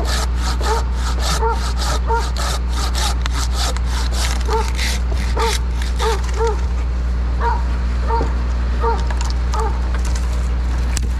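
A dog barking again and again over a steady engine hum. Through the first half there is also a fast rhythmic rasping, about four strokes a second, that then fades out.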